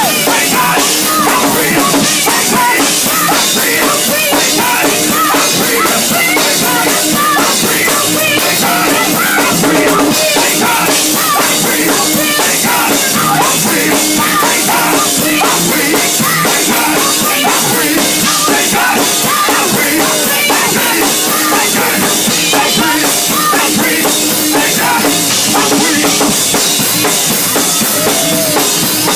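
Live gospel music: a drum kit keeping a steady beat under a vocal group singing into microphones.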